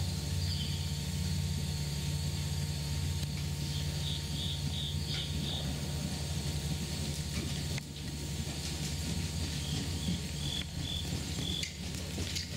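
Horse trotting on soft sand arena footing, its hoofbeats faint under a steady low rumble. A high chirping comes in two short runs of quick repeats, about four seconds in and again about ten seconds in.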